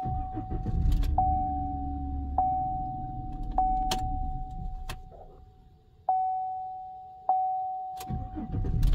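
Silverado's engine running, then dying away about five seconds in, then starting up again near the end, all under the truck's warning chime dinging about once every 1.2 seconds. The starts are cranking tests, in which the battery voltage dips to between 8.6 and 10.5 volts, near the 9-volt point that sets a low-voltage code.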